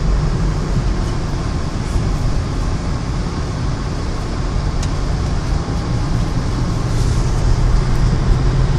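Car driving along a country road, heard from inside the cabin: a steady rumble of engine and tyre noise, with one small click about five seconds in.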